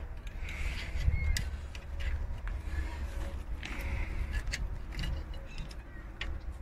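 Scattered light metallic clicks and clinks of hand tools and a brake caliper's spring clip being worked by hand, over a steady low rumble.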